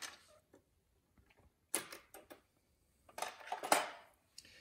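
Lego plastic parts clicking and clattering under the hands: a sharp click just under two seconds in, then a short cluster of clicks a little after three seconds.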